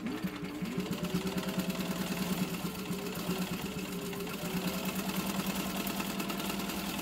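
Singer 15-91 sewing machine running at a steady speed and stitching through denim: an even motor hum under a fast, regular ticking of the needle and feed. It spins up right at the start.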